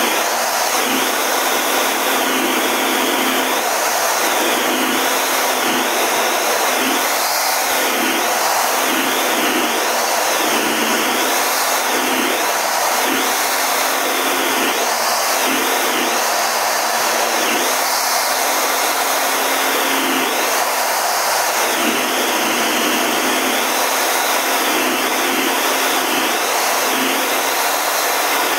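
Steady, loud rushing noise inside the cockpit of a Canadian Forces CT-114 Tutor jet in flight: its single turbojet engine and the airflow over the canopy, with a faint steady hum beneath it and no break.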